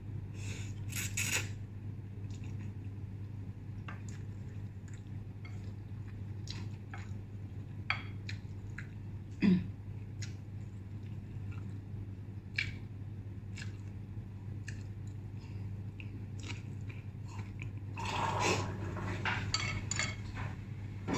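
Someone eating instant noodles with wooden chopsticks: scattered clicks and taps of the chopsticks against the bowl, with chewing, over a steady low hum. About 18 seconds in a louder, busier stretch of noise starts.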